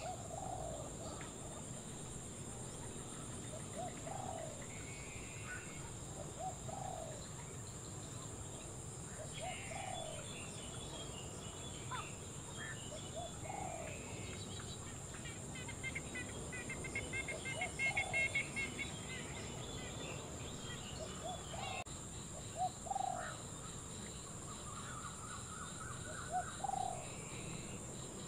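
Wild birds calling: a low cooing call repeated every two to three seconds, with scattered higher chirps and a louder run of chirping about two thirds of the way through, over a steady high hiss.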